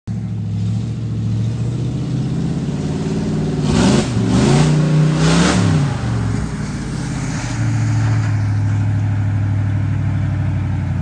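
Engine of a lifted Ford pickup revving as the truck drives through a mud hole. The engine pitch climbs and falls about four to six seconds in, then it runs steadily at a lower pitch.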